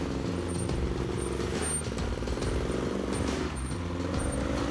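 Can-Am ATV engine running steadily at a low speed, its pitch wavering and rising slightly near the end with small throttle changes.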